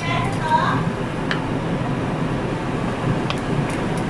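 Pan of stingray simmering in coconut milk on an electric stove, stirred with a wooden spatula that clicks lightly against the pan a few times over a steady low hum.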